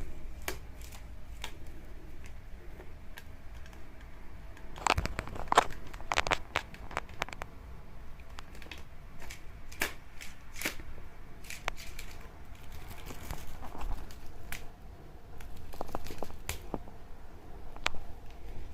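A dragonfly cat-teaser toy rustling and crinkling with scattered light taps and clicks, as cats play with it; the busiest, loudest rustling comes about five to seven seconds in.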